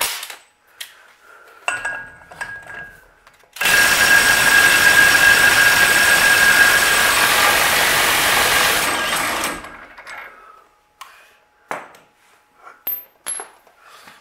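A power wrench on the axle nut runs for about six seconds, spinning the loosely fitted nut off the axle: a loud steady hiss with a steady tone through it. Short metallic clicks come before and after as the nut and parts are handled.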